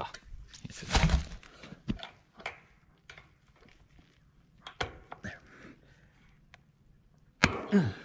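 Intermittent knocks and light metallic rattles of woven wire fencing being handled at a wooden post, the loudest knock about a second in. A short low voice sound, falling in pitch, comes near the end.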